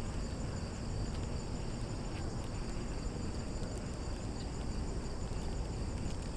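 Steady insect chorus, crickets by the sound of it, trilling high and continuous over a low, even rumble.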